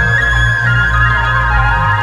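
Ambient background music: long held tones over low, sustained bass notes.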